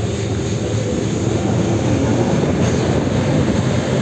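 Bus running along the road, its engine and road noise heard from inside the cabin with wind rushing in through the open side door; a steady, loud noise that swells a little in the middle.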